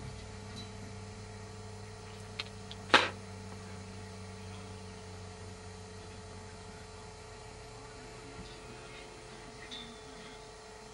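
A steady low hum, with one sharp knock about three seconds in.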